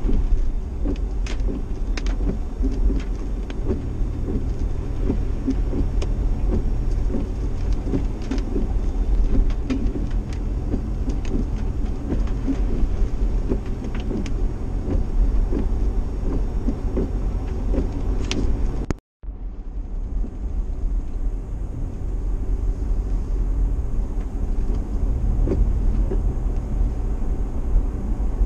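Steady engine and tyre noise of a vehicle driving on a wet road, heard from inside the cabin, with scattered light clicks. The sound cuts out for a split second about two-thirds of the way through, then the same driving noise resumes.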